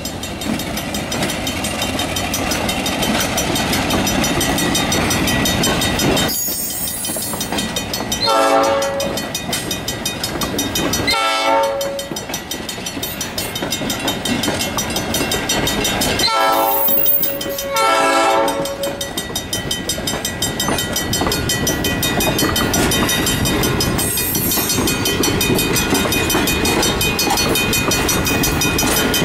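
Fillmore & Western passenger train rolling through a grade crossing, its cars' wheels clattering over the rails while the crossing bell keeps ringing. A train horn sounds four short blasts in two pairs, about a third and two-thirds of the way in.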